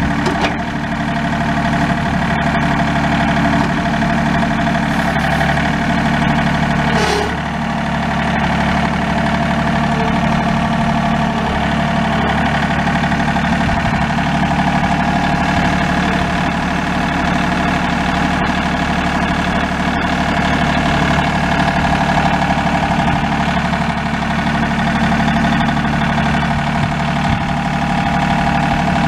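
John Deere 3038E compact tractor's three-cylinder diesel engine running steadily, with a brief dip in level about seven seconds in.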